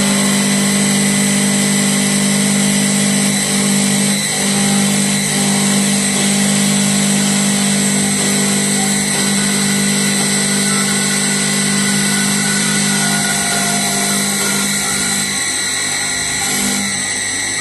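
CNC wood turning lathe running: a steady machine hum and high whine that holds one pitch, over a rough, even noise.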